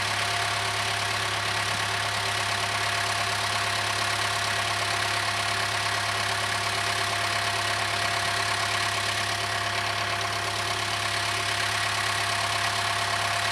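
Case 580K backhoe's diesel engine running at a steady speed, with a steady thin whine over it.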